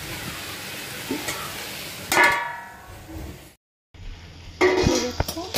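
Karonda, green chillies and onion sizzling in mustard oil in a kadhai, with a loud metal clang that rings on about two seconds in as the pan is covered with its lid. After a short cut, the lid and a steel spatula clatter against the pan.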